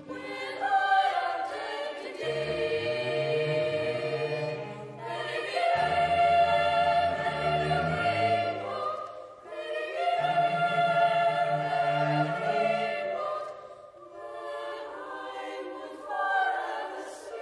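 Boys' choir singing in phrases a few seconds long, with a cello holding low notes beneath the voices.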